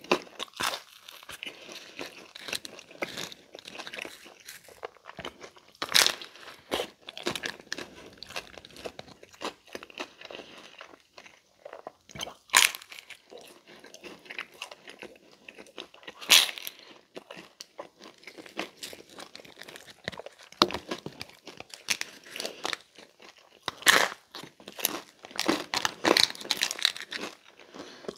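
Close-up chewing and crunching of a crisp-crusted Pizza Hut Melt slice: a steady run of wet chews and small crunches, with several louder crunchy bites a few seconds apart.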